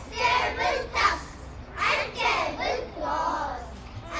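A large group of young children reciting a rhyming poem in unison, in chanted phrases with short pauses between them.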